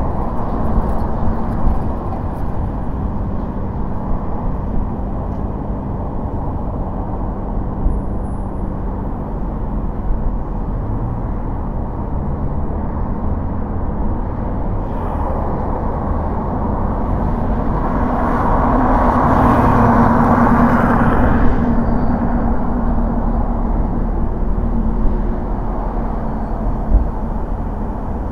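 Car driving: steady low road and engine rumble with a faint hum. The noise swells louder for about three seconds roughly two-thirds of the way through, then settles back.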